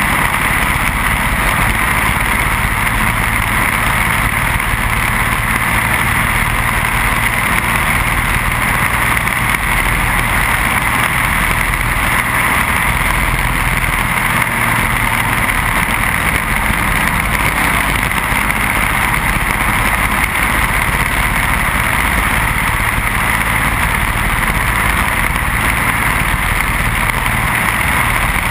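Briggs & Stratton Animal single-cylinder four-stroke kart engine running hard and steadily as the racing kart laps, with a constant rush of wind noise over the onboard microphone.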